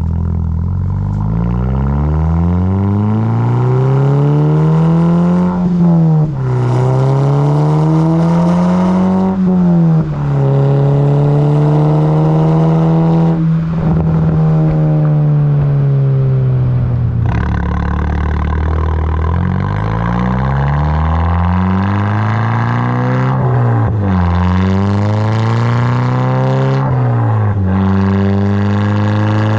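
MK6 Volkswagen GTI's turbocharged 2.0-litre four-cylinder engine and exhaust under acceleration. The note climbs through each gear and drops sharply at every upshift, several times over, with a steadier stretch midway.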